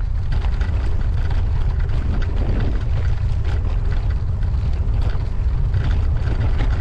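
Wind buffeting the microphone of a moving bicycle, a steady low rumble, over the tyre noise of a gravel bike rolling on hard-packed limestone gravel trail.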